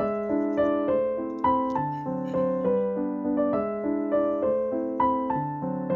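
Background piano music: a melody of single notes, each struck and fading, a few notes a second.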